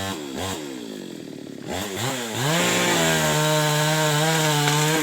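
Chainsaw engine revved in a few short throttle blips, then held at a steady high speed for about two and a half seconds before the revs fall away at the very end.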